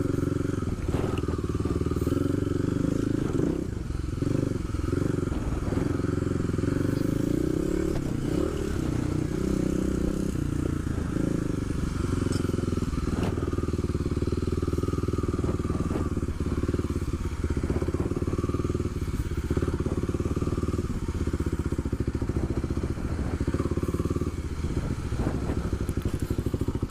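Kawasaki KLX250SF's single-cylinder four-stroke engine running steadily as the bike is ridden, with scattered knocks and clatter from the bike over rough ground.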